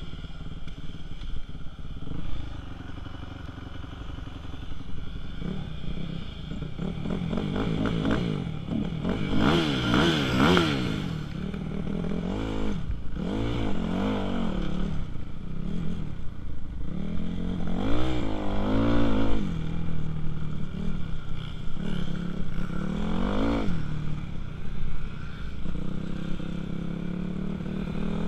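2006 Kawasaki KX250F's single-cylinder four-stroke engine being ridden, revving up and down through repeated bursts of throttle. Near the end the revs climb steadily.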